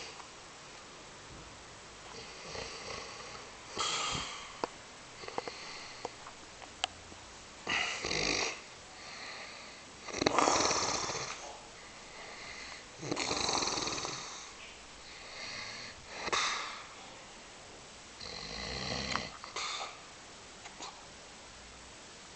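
An elderly man snoring loudly, with a snore every two to three seconds; the loudest comes about ten seconds in.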